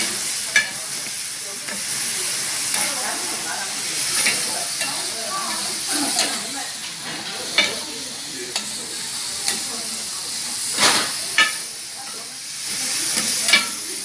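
Dakgalbi, spicy chicken with cabbage and perilla leaves, sizzling in a hot cast-iron pan with a steady hiss. A utensil stirring the food clacks sharply against the pan several times.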